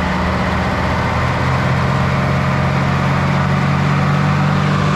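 Farm tractor engine running with the PTO engaged, driving a hay mower; the engine note steps up a little about a second and a half in as it is throttled up toward 540 rpm PTO speed.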